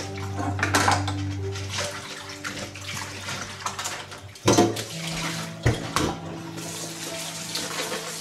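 A plastic colander and fish knocking and rattling against a stainless steel bowl and sink, then a tap running onto the fish in the colander from about six and a half seconds in.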